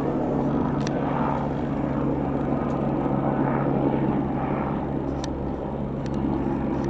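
Leonardo AW119 Koala single-engine helicopter flying past overhead: a steady drone of rotor and turbine with a low, even hum.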